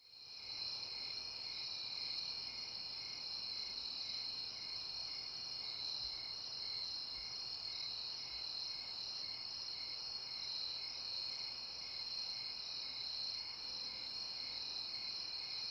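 A steady, high-pitched chorus of night crickets, with a fainter chirp pulsing about twice a second underneath. It fades in at the start.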